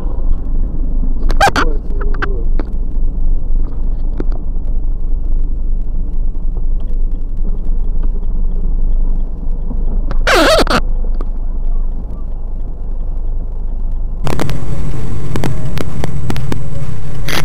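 Dashcam recording from inside a moving car: a steady low rumble of engine and tyre noise in traffic, broken by two brief sharp sounds about a second and a half in and about ten seconds in. Near the end it switches abruptly to a louder, steady drone from another dashcam clip.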